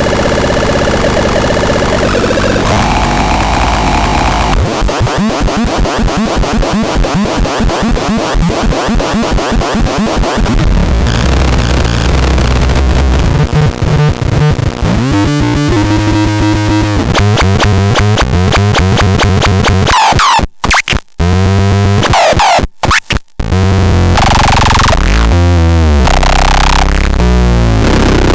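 Harsh, glitchy electronic noise from the BaIOTEX 03 noise synthesizer, shifting between buzzing, fast-pulsing and wobbling textures every few seconds. The sound cuts out briefly a few times near the end.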